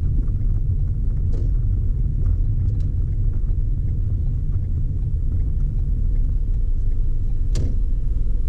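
Steady low rumble of engine and road noise inside a moving car's cabin, with one sharp click near the end.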